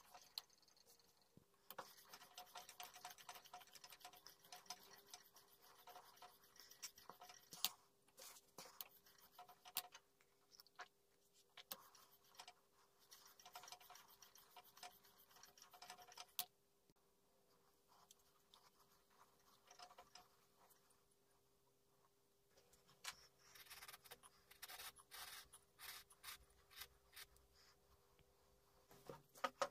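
Faint scratching of a chisel bevel being honed on a sharpening stone in a honing jig, a rapid run of rasping strokes that pauses for a few seconds past the middle and then starts again.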